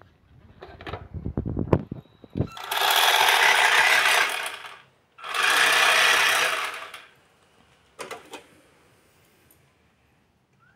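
Electric drive motor of a Joustra radio-controlled Mitsubishi toy 4x4 running in two bursts of about two seconds each, with a short break between. A few clicks and knocks come before the first burst and again after the second.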